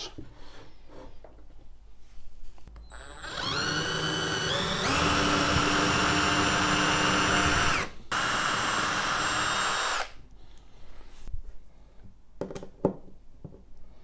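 Cordless drill boring into a piece of driftwood: the motor starts about three seconds in and speeds up, runs steadily, cuts out for a moment, then runs again for about two seconds before stopping. A few light knocks of handling follow near the end.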